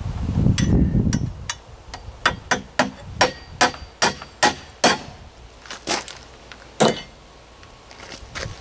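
Hammer driving 1-1/2-inch galvanized joist hanger nails through a steel joist hanger into a wooden beam: a quick run of about a dozen sharp strikes, two or three a second, then two last, spaced-out blows.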